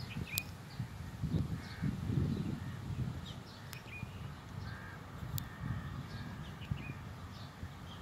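Birds calling in short, repeated chirps with a few longer calls among them, over low gusts of wind on the microphone and three sharp clicks.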